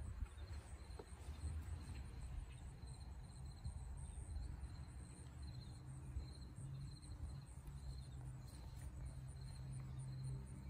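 Crickets chirping outdoors: a steady, faint train of repeated high chirps, over a low rumble.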